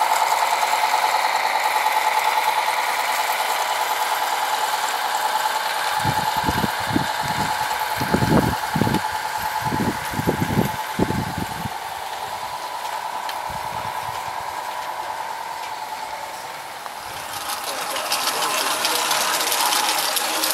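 Garden-railway model locomotive running with a steady mechanical whine, and a run of low thumps partway through. Near the end the whine fades and a hiss builds.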